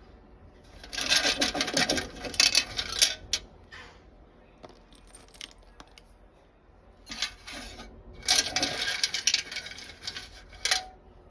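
Old metal tool box being handled, its metal tray rattling and clanking against the box as it is worked loose and lifted off the pins it sits on. There are two bursts of clatter, about a second in and again from about seven seconds to near the end.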